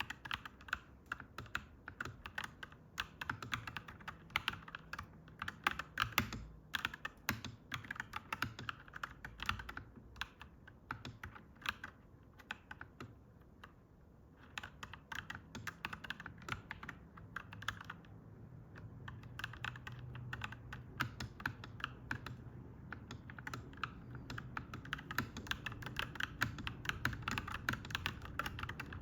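Clacky mechanical keyboard being typed on in quick runs of keystrokes, with short pauses near the middle. A low steady rumble builds underneath through the second half.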